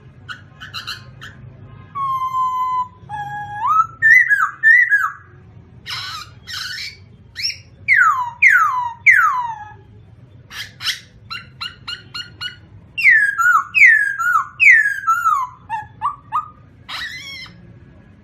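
A songbird singing varied whistled phrases: held clear notes, then sets of three quick downward-sliding whistles about 8 and 14 seconds in, with rapid clicking trills between them. A faint low hum runs underneath.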